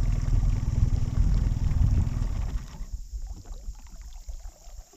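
Small outboard motor on a jon boat running at low speed, then dropping away about two and a half seconds in as the boat comes in to the dock. A few light knocks follow.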